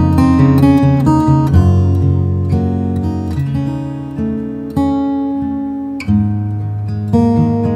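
Hsienmo Spring GA cutaway acoustic guitar played fingerstyle. It opens with a run of quick picked notes, then moves to slower chords that are plucked and left to ring out, with fresh chords struck about five and six seconds in.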